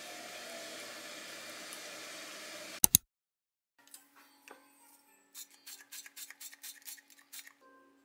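A glass pump oil sprayer spritzing oil into a pancake pan: about ten quick, even sprays over two seconds, over a steady low hum. It is preceded by a steady hiss with faint music, which ends in two sharp clicks about three seconds in.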